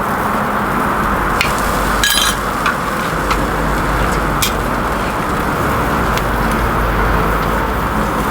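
Food frying on a flat griddle at a street stall: a steady sizzle broken by sharp clicks and taps, with a brighter clink about two seconds in, over a low rumble of street traffic.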